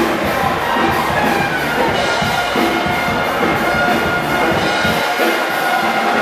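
Brass band music with drums and a steady beat. The bass drops away about five seconds in.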